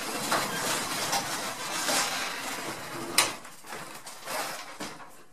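Sectional garage door moving with its opener trolley along the rail: a rolling, rattling noise for about three seconds, a single sharp click about three seconds in, then quieter knocks.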